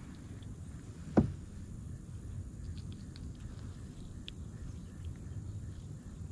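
A single sharp knock against the kayak about a second in, over a steady low rumble, with a few faint light clicks afterwards as a small caught fish is handled in the lap.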